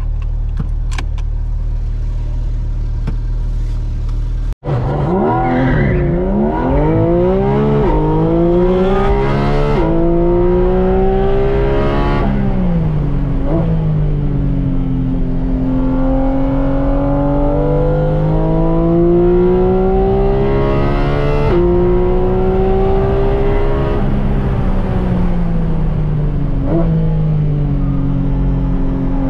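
Porsche 718 GT4 RS's 4.0-litre naturally aspirated flat-six, heard from inside the car: a steady low drone at first, then, after a brief break about four and a half seconds in, it is driven flat out. The pitch climbs in long rising sweeps and drops back at each gear change, with quick blips of revs on downshifts.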